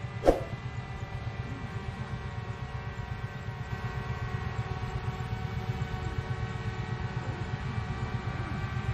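A small engine running steadily with a pulsing low rumble and a constant whine, and a single sharp metallic clank with a brief ring just after the start.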